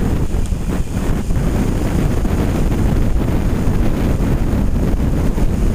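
A moving bus, with steady road and engine rumble and air rushing over the microphone. A few faint knocks and rattles come through.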